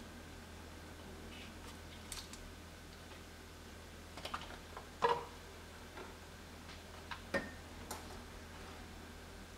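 A few light knocks and taps as onion halves and garlic cloves are set into a pot on top of raw pork, the loudest about halfway through. A faint steady low hum lies underneath.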